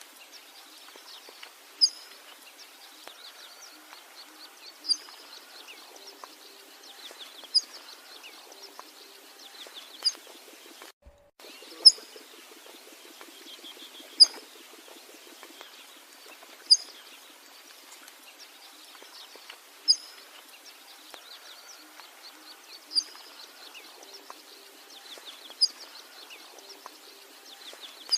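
Birds calling: a sharp, high chirp repeats about every two and a half to three seconds over a continuous soft chorus of fast, trilling chirps. The sound drops out briefly about eleven seconds in.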